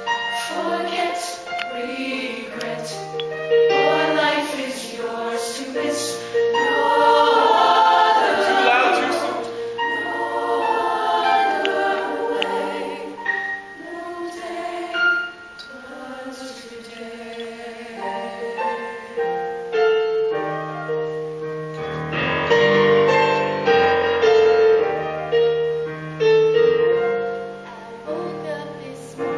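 High school show choir singing a slow ballad in harmony, with long held notes. Deeper notes join the sound about two-thirds of the way through.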